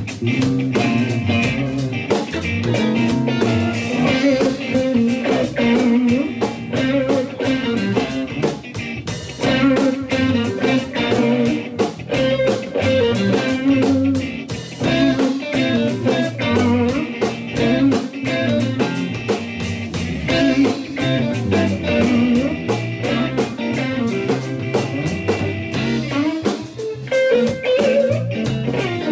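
Live rock band playing an instrumental: several electric guitars over electric bass and a drum kit keeping a steady beat.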